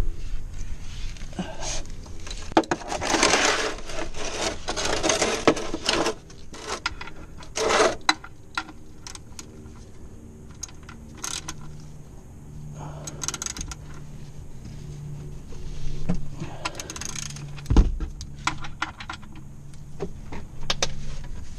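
Metal tools clinking and scraping, with shuffling and scuffing, as a 13 mm socket and an oil pan are handled under a Jeep's engine to reach the oil drain plug. The sounds are irregular knocks and clicks with short scraping bursts, busiest in the first several seconds.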